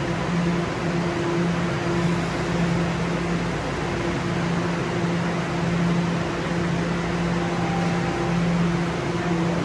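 Bombardier Toronto Rocket subway train standing at the platform with its doors closed, its onboard equipment giving off a steady low hum, with a fainter tone an octave above, over a constant whirring noise.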